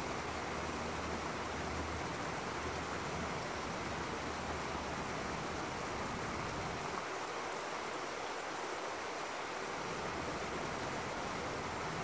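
Small woodland stream spilling over a little rocky waterfall: a steady, even rush of water. A low rumble underneath fades out about seven seconds in and comes back near the end.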